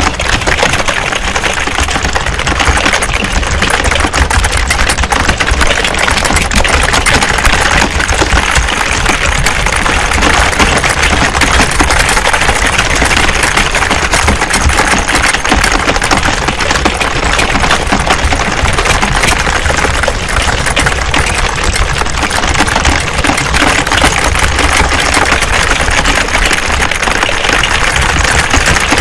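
Dense, continuous clatter of many computer keyboards being typed on at once, with no pauses.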